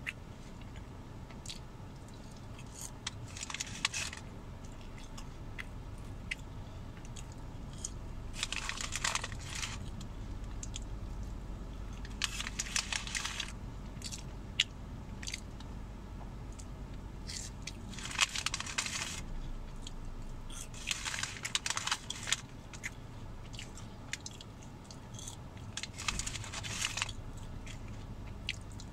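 Close-up chewing and biting of McDonald's french fries, with several short crisp rustles, likely the paper fry bag as fries are taken out, over a low steady rumble.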